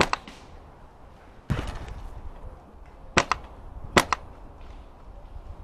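Krytac SPR airsoft rifle firing: three sharp double clicks, one at the start, one about three seconds in and one about four seconds in. From about a second and a half in, wind buffets the microphone with a low rumble.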